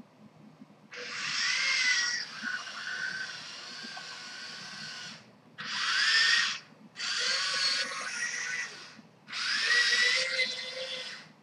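Dagu RP5 tracked robot chassis driving in short runs: its electric gear motors whir, each run starting with a rising whine as the motors spin up. There are four runs, the first about four seconds long and the others about a second or two, with brief stops between.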